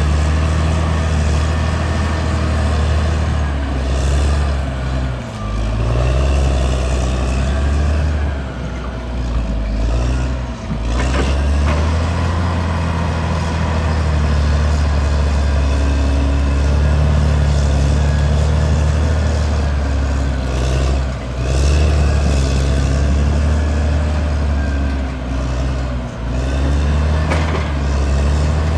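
Caterpillar D6R XL bulldozer's diesel engine running steadily, with a few brief dips in level.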